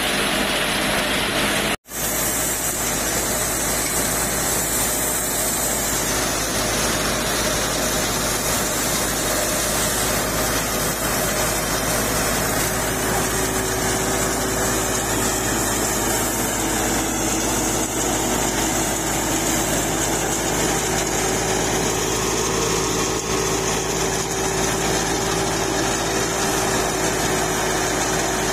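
Tractor-driven thresher running steadily under load, its beater drum churning the straw being fed in, over the Fiat 480 tractor's diesel engine. The sound cuts out for a split second about two seconds in.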